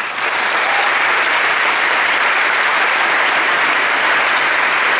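A seated audience applauding. The applause breaks out right away and holds steady and loud.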